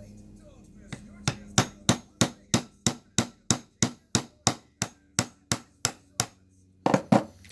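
A hammer tapping a knife blade into the glued seam of a plastic door lock actuator housing, about three sharp, even taps a second, to split the case open. The taps stop briefly and two more follow near the end.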